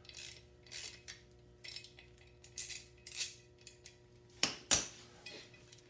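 Metal clinks and light scrapes of parts and tools being handled at a car's rear drum brake with the drum removed: a string of short, sharp clinks, with one louder clank about three quarters of the way through.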